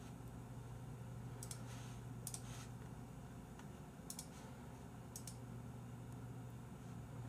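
Faint clicks from a computer mouse and keyboard, about five, some in quick pairs, over a steady low hum.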